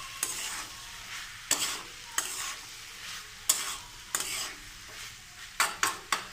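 Metal spatula scraping and turning spiced cauliflower, potato and peas around a metal kadai over steady sizzling from the frying masala. The scrapes come about once a second and quicken near the end as the mix is turned over so it doesn't stick to the bottom.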